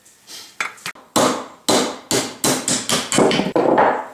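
Hammer blows on metal: a few light taps, then about a second in a run of heavy strikes, roughly three a second, each with a short ringing tail.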